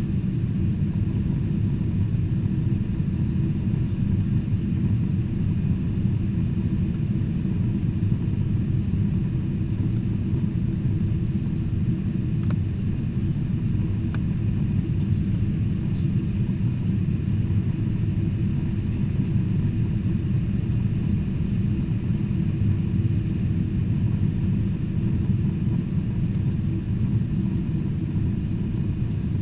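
Steady low rumble of a Boeing 747-400's engines and airflow, heard from inside the passenger cabin.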